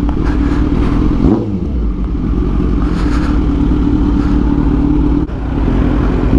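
Kawasaki Z900 inline-four motorcycle engine with an aftermarket racefit exhaust running at steady revs. There is a brief change in revs about a second in, and the revs fall away at the very end.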